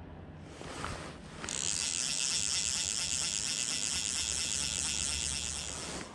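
Fly reel's click-pawl ratchet buzzing fast and evenly as line runs off or onto the spool. It starts about a second and a half in and stops abruptly just before the end.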